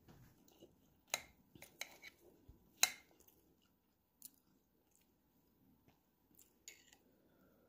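Faint clicks, taps and scrapes of a metal fork and knife against a plate while cutting into grilled fish and roasted potato, a quick run of taps in the first three seconds, the loudest near three seconds in, then a few scattered ones later.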